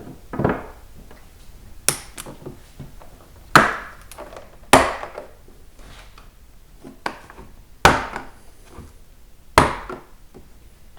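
Plastic case of a Craftsman 206-piece mechanics tool set being opened: a series of sharp snapping clicks and knocks, about six in all, with quieter handling noise between them.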